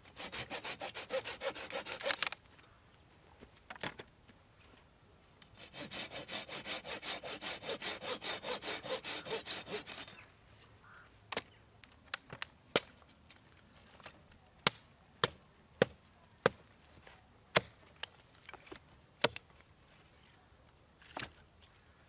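Hand saw cutting wood in quick back-and-forth strokes, in two bouts of about two and four and a half seconds. After that come a dozen or so separate sharp clicks and snaps.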